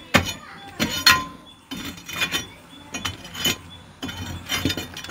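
A metal bar chipping at a brick-and-mortar wall: an irregular series of sharp metallic clinks, about eight strikes, each with a short ring.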